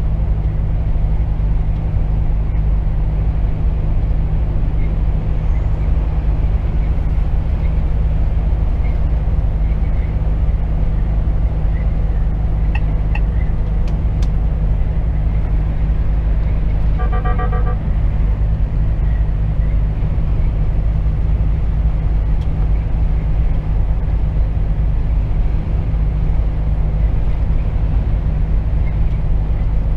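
Steady drone inside a Volvo FH 460 truck cab at about 85 km/h: the 13-litre straight-six diesel running at a constant cruise, with road and tyre noise. About 17 seconds in there is a short burst of rapid electronic beeps lasting under a second.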